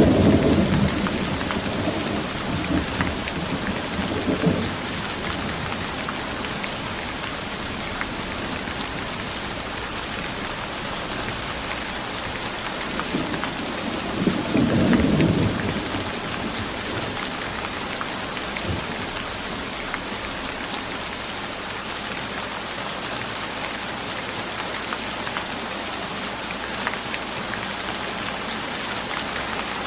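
Steady rain falling, with low rolls of thunder rumbling at the start and again about halfway through.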